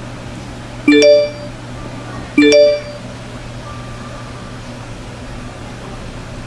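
Two short, bright chimes about a second and a half apart, each a cluster of clear notes: a smartphone message notification sound. A steady low hum runs underneath.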